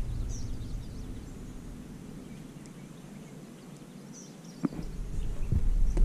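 Quiet outdoor pond ambience with a few faint, short bird chirps. About three-quarters of the way through comes a single sharp knock, followed by low rustling handling noise on the kayak.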